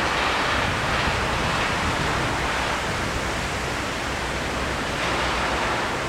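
Steady rush of water cascading down the 9/11 Memorial pool walls: the memorial waterfalls, an even hiss with a low rumble beneath.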